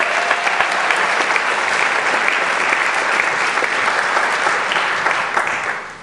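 Audience applauding, a dense, steady patter of many hands clapping that dies away near the end.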